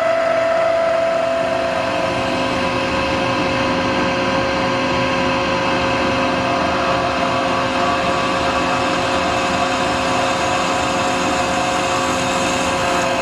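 CNC wood-turning lathe running steadily: a constant machine whine made of several steady tones over an even mechanical hum.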